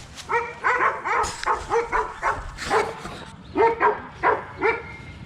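Dog barking over and over, about a dozen short barks in quick runs with a brief pause a little after the middle.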